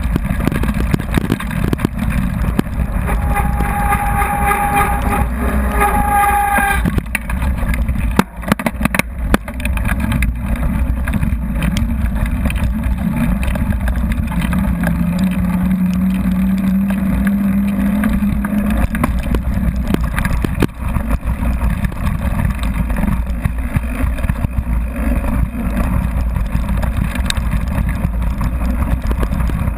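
Mountain bike descending a gravel forest road, heard from a handlebar-mounted camera: a steady deep rumble of wind buffeting the microphone and knobby tyres on loose gravel, with scattered rattles and clicks. Two short high-pitched squeals come about three and six seconds in.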